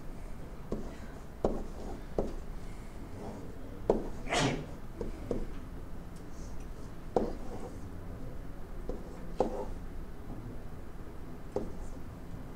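Pen tapping and rubbing on an interactive whiteboard as an expression is written, with scattered short knocks and a brief hiss about four seconds in.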